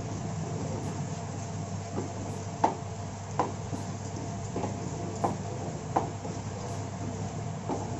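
Cooking spoon knocking and scraping against a pan while stirring a thick potato-and-pea masala, a knock roughly every second, over a steady low hum.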